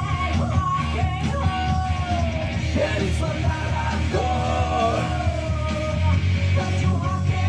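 Rock music playing, with a shouted, harsh male vocal over distorted guitars and drums.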